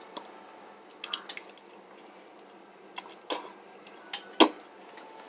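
Spoon clinking against a bowl of fruit, ice and coconut water: a handful of separate light knocks, the sharpest about four seconds in.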